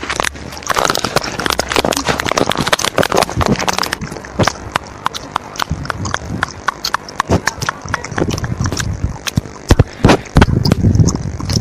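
Rapid, irregular clicking of a phone-keyboard typing sound effect, dense at first and then in looser runs of separate clicks.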